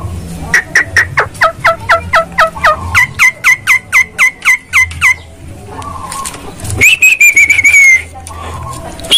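Javan myna calling: a fast run of about twenty short whistled notes, each sliding down in pitch, about four a second, then after a pause one long high whistle held for about a second. The uploader presents these calls as the myna wanting to mate.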